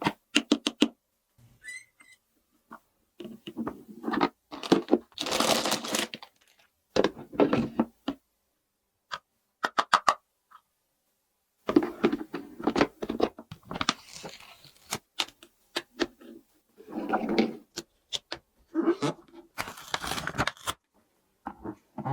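Plastic toy pieces being handled, with sharp clicks and knocks and several bursts of crinkling, rustling packaging.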